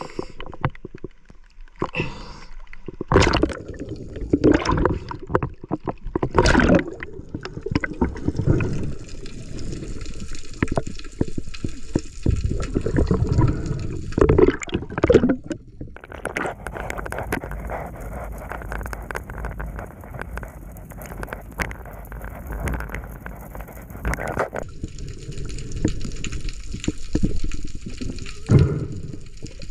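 Water sloshing and gurgling close to the microphone, with loud splashes now and then, as from a diver moving in the sea.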